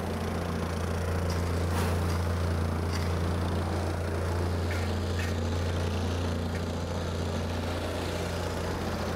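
Gas-powered plate compactor with a Honda engine running steadily as it compacts a base of 3/4-inch crushed stone and stone dust, with a few sharp clicks scattered through.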